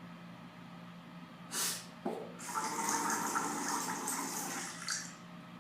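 Water gushing and pouring for about two and a half seconds, set off by a short rush and a sharp click, as if hot water is being let out of an electric pot.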